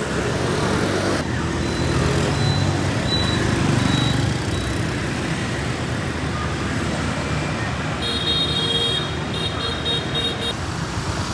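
Busy street traffic, with motorbike engines running steadily. About eight seconds in, a high, broken beeping sounds for a couple of seconds.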